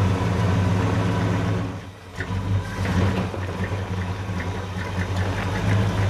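1969 Chevy C10 pickup's engine running steadily, newly brought back to running order after sitting 15 years without starting. Its level dips briefly about two seconds in, then picks back up.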